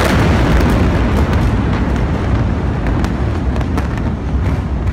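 Aftermath of a massive industrial explosion at a hazardous-chemicals storage site: a loud, continuous deep rumbling roar that slowly eases, with several sharp cracks and pops through it.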